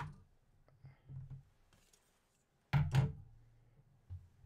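Handling sounds: a few light knocks and taps, with two sharper knocks close together about three seconds in.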